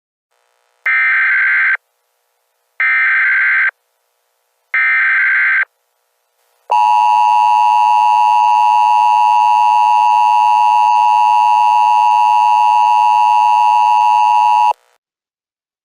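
Emergency Alert System opening tones: three short bursts of SAME header data, a buzzy warble each just under a second long and about two seconds apart. Then comes the EAS two-tone attention signal, a steady chord held for about eight seconds before it cuts off. Together they mark the start of an EAS alert, here a national periodic test.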